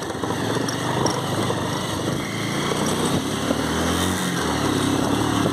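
Motorcycle engine running steadily under way, its note shifting a little about three and a half seconds in.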